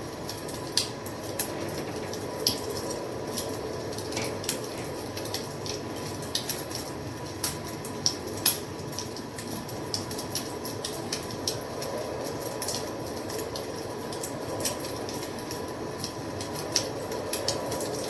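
Wood fire crackling: a steady low rush of burning with sharp pops and snaps at irregular intervals, a few of them louder than the rest.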